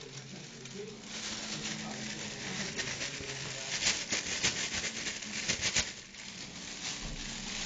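Hissing patter with sharp crackles a few seconds in, from a clear plastic bag being handled over a bowl of water holding bloodworms.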